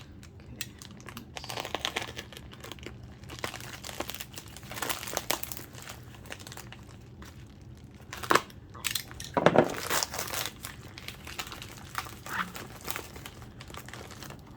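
Packaging of a shipping package being crinkled and torn open by hand: irregular crackling and rustling, with a few louder sharp rips about eight and ten seconds in.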